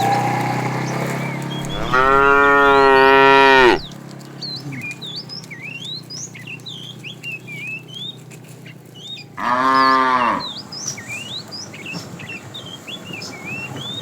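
Cattle mooing twice: a long, loud moo about two seconds in and a shorter one near ten seconds. Between them, small birds chirp.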